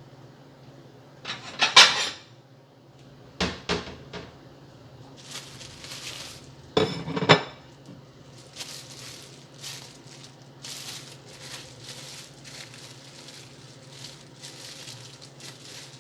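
Kitchen utensils and dishes clattering during sandwich making: a loud clatter about two seconds in, three sharp knocks around four seconds, another clatter about seven seconds in, then a run of softer short scraping sounds, over a faint steady low hum.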